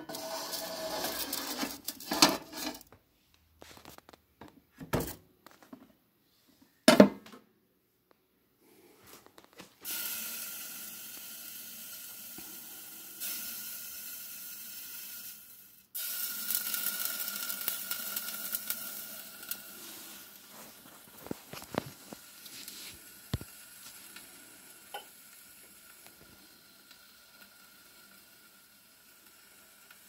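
A ceramic plate clatters and knocks against the rack and door of a toaster oven a few times. It is followed by a steady hiss with a faint steady whine as the water on the plate heats toward a boil in the oven, and the hiss slowly fades near the end.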